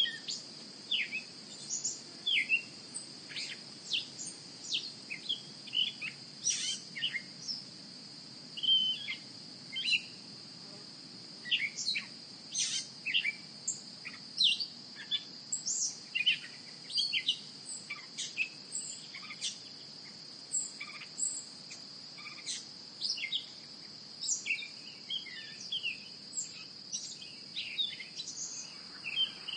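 Birds chirping, many short separate calls one after another, over a steady high-pitched insect drone.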